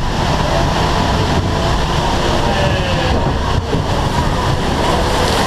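Log flume boat climbing on a lift conveyor: a steady mechanical rumble and clatter under the boat, with running water.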